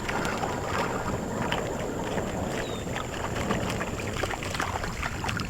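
Wind on the microphone and water slapping against the hull of a small boat, with scattered light knocks and splashes.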